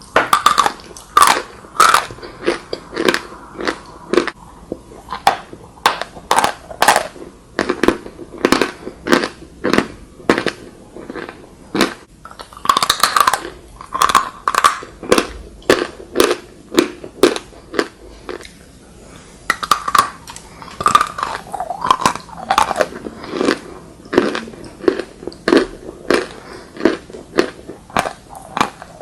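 A person biting and chewing chalk: a steady run of sharp, dry crunches, about two to three a second, with denser flurries of crunching now and then.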